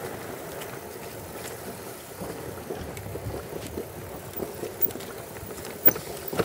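Cube Stereo Hybrid 140 electric mountain bike rolling down a dirt singletrack: steady tyre and wind noise, with a couple of sharp knocks from the bike over bumps near the end.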